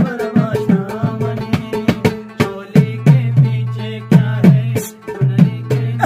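A man singing a Pashto folk song and accompanying himself on a rubab, plucked strings ringing under the voice, with a drum keeping a quick rhythm.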